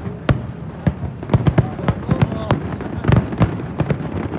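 Fireworks display with many shells bursting in quick, irregular succession, several bangs a second.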